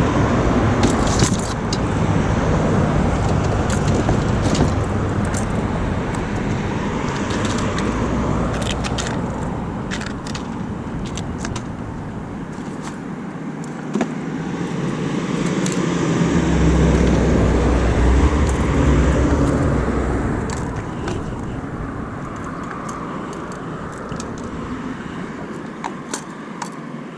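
Road traffic: cars passing steadily, one growing louder and fading away about two-thirds of the way in, with scattered short clicks and metallic rattles close by.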